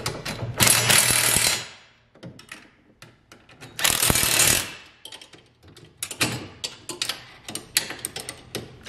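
Cordless power driver spinning a socket to run in the plow mount bracket bolts in two short bursts, about half a second in and about four seconds in, with scattered clicks of a wrench and metal parts between them. The bolts are only being snugged so the bracket can still slide.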